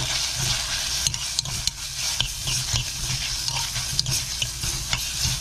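Minced pork, onion and doubanjiang sizzling as they are stir-fried in an earthenware pot. A metal spoon scrapes and clicks against the pot again and again over a steady frying hiss.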